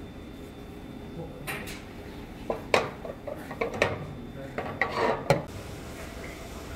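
Metal spoon and tableware clinking: a string of sharp clinks and knocks starting about a second and a half in and stopping a little after five seconds.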